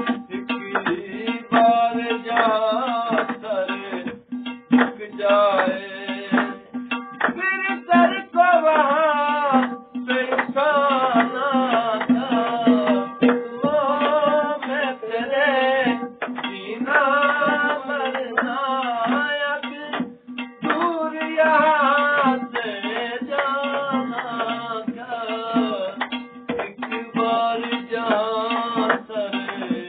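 Folk singing by men's voices with a wavering melody, accompanied by hand drumming on an upturned metal cooking pot and a steady drone note underneath.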